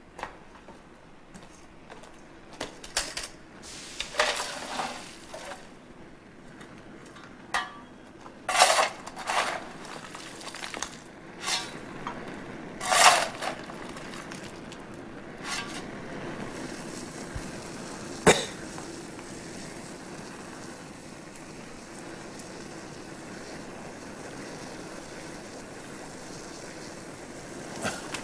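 Metal clanking and scraping at an open coal-fired furnace, a dozen or so sharp clatters ending in a single knock. After that the fire in the firebox burns with a steady rushing hiss.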